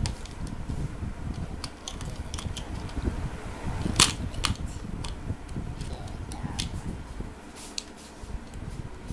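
Plastic Playmobil figures and a toy cart clicking and knocking on a wooden tabletop as they are handled: scattered light clicks, with one sharper knock about four seconds in.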